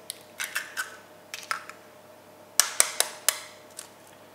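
A steel spoon tapping and cracking eggshells over a ceramic bowl: a string of short, sharp clicks, the loudest cluster of taps about two and a half to three and a half seconds in.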